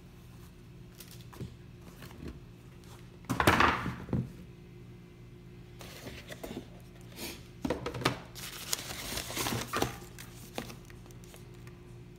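Cardboard shoe box and paper packaging being handled: rustling and knocks of cardboard and paper. A loud rustle comes about three and a half seconds in, and a longer stretch of rustling follows between about eight and ten seconds.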